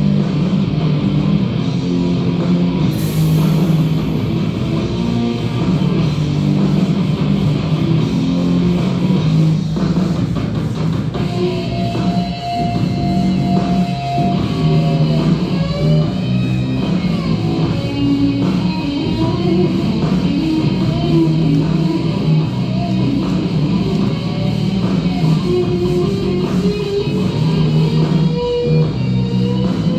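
Rock music with electric guitar and drums playing throughout.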